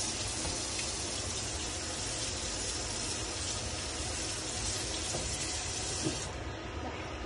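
Kitchen faucet running a steady stream of water onto parboiled lasagna noodles in a plastic colander, rinsing them so they don't stick together. The water is shut off about six seconds in.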